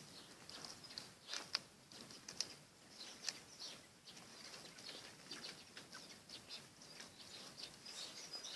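Faint chirping of small birds: many short, high chirps, with a few sharper ones about a second and a half and three seconds in.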